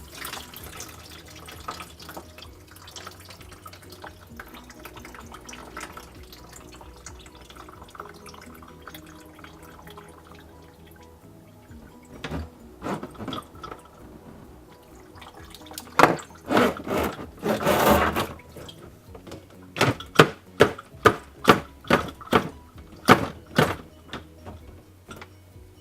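Bosch dishwasher's drain pump running with a low, steady sound. Then, from about halfway, water gushes out of the disconnected drain hose in loud surges and a quick run of spurts, about two a second, as the pump flushes food debris out of the clogged drain line.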